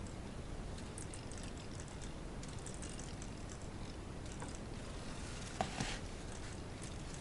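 Knex buggy's plastic CVT drivetrain running unloaded: light, irregular clicking of the ratchet and gears, with one sharper click about five and a half seconds in.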